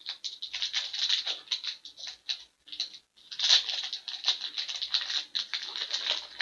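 Foil trading-card pack wrapper crinkling and rustling as it is handled and opened, a dense run of small crackles with a brief break about three seconds in.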